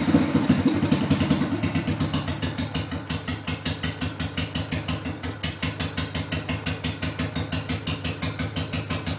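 Classic motorcycle engine settling from a rev into a slow, even idle, each firing pulse distinct at about six beats a second.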